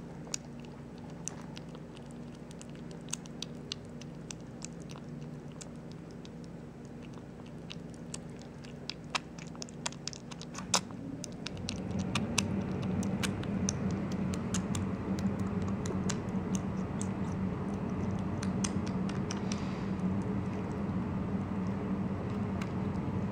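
Three-week-old kitten eating wet cat food from a bowl: rapid small wet clicks and smacks as it laps and chews. About halfway through, a steady low hum comes in underneath and stays, louder than the eating.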